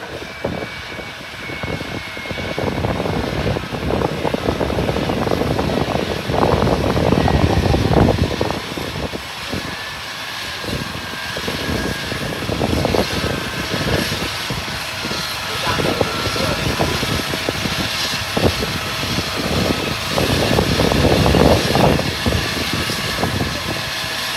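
Airliner engines running at an airport, a continuous rush with a faint steady whine, with gusts of strong wind buffeting the microphone.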